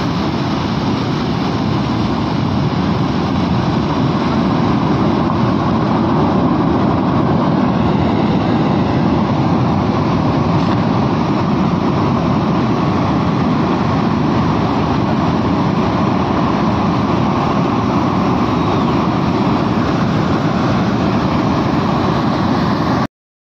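Muddy floodwater torrent rushing down a mountain valley: a loud, steady rushing noise that cuts off abruptly near the end.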